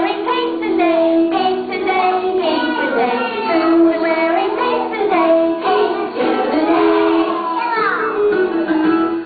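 Young children singing a song together with music accompaniment.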